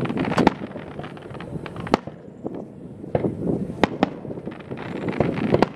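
Aerial firework shells bursting: a string of sharp bangs at uneven intervals, several close together, over a low background rumble.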